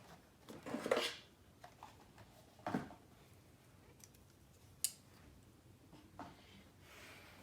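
Packaging being handled and opened during an unboxing: a few soft scraping rustles, and about five seconds in, one sharp click.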